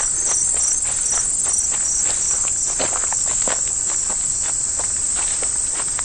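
Insects in the meadow grass trilling steadily at a high pitch, with a walker's footsteps on the grassy dirt path.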